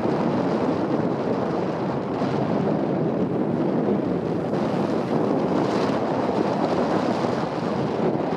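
Steady wind rush buffeting the microphone on a moving moped, an even noise with no distinct engine note standing out.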